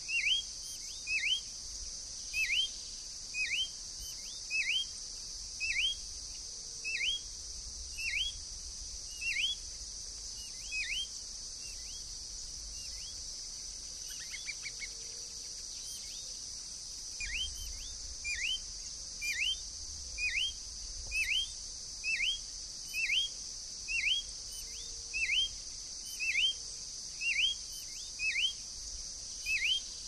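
Green-backed becard calling: a long series of short, clear, hooked whistled notes, about one a second, with a pause of a few seconds midway. Behind it is a steady high hiss of insects.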